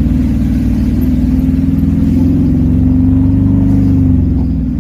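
Vehicle engine heard from inside the cab while driving, a steady low drone. The note climbs as it accelerates, then drops and eases off a little after four seconds in.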